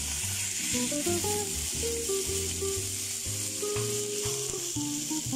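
Raw ground pork sizzling steadily in hot oil in a frying pan with browned garlic and onion, just dropped in and pushed around with a wooden spatula. Background music with a melody and bass plays over the sizzle.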